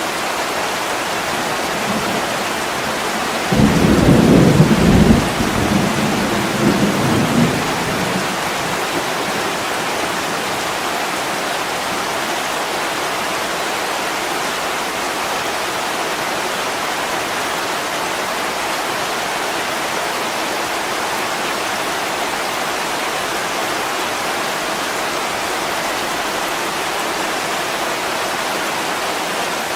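Steady heavy rain, with a low rumble of thunder about three and a half seconds in that dies away in a few smaller swells over about four seconds.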